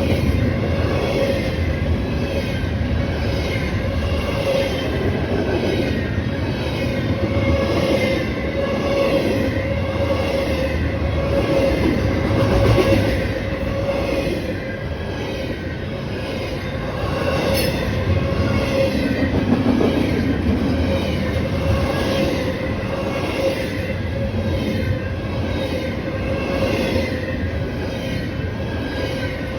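Railroad cars of a passing train rolling by, with a steady whining note above the rumble and an even repeating rhythm of the wheels, roughly once a second.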